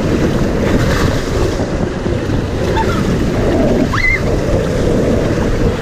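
Rushing water of a raft ride with wind buffeting the microphone, a steady dense rumble. A brief high-pitched squeal about four seconds in.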